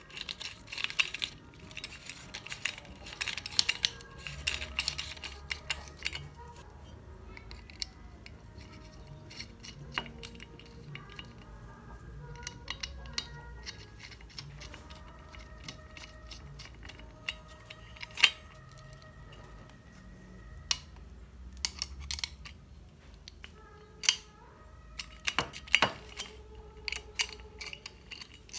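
Scattered light metallic clinks and taps as a flap disc and a steel pin-spanner are fitted to an angle grinder that is not running, over quiet background music.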